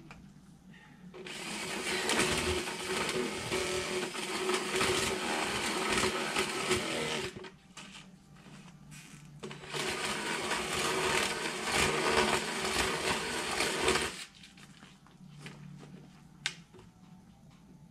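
DeWalt power drill boring holes into PVC pipe, run twice: about six seconds, then after a short pause about four more, a steady motor whine under the noise of the bit cutting the plastic.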